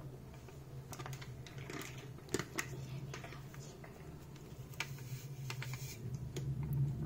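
Faint crinkling and light tapping of a plastic sachet as malt powder is shaken out of it into a steel mixer jar, a few scattered small clicks over a low steady hum.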